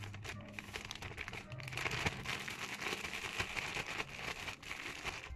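Zip-top plastic bag crinkling and rustling in the hands as it is tipped and shaken, eggplant slices and a powdery coating tumbling inside. The crinkling grows denser and louder from about two seconds in.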